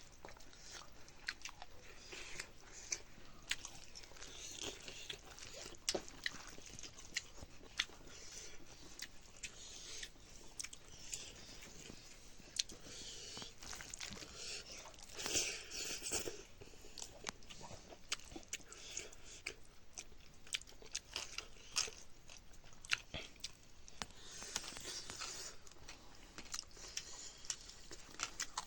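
Irregular crunching and crackling close to the microphone: many sharp clicks at an uneven pace, with a louder cluster about fifteen seconds in.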